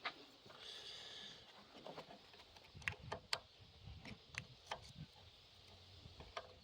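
Faint clicks and light scraping of a small hand tool working against a carburetor body, prying at a stuck inlet needle seat, with a few sharp ticks in the middle.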